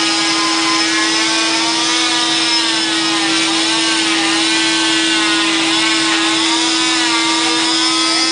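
Oscillating cast saw with a vacuum hose running and cutting through a fiberglass arm cast: a steady motor hum with a whine above it that dips and recovers in pitch as the blade is pressed into the cast.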